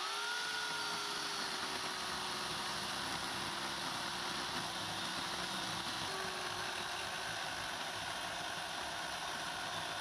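Chainsaw spinning up and running at speed while cutting into the base of a tree trunk. Its whine slowly sags in pitch under the load and picks up briefly about six seconds in.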